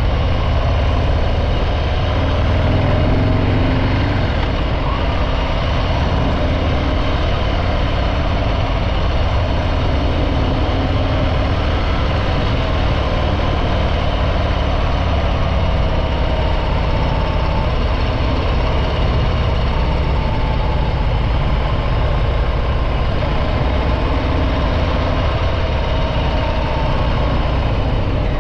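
Harley-Davidson Breakout 114's Milwaukee-Eight 114 V-twin on its stock exhaust, running steadily under way, its engine speed rising and falling gently.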